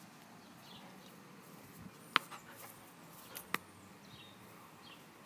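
Small birds chirping faintly and repeatedly in the background, with two sharp clicks about a second and a half apart near the middle.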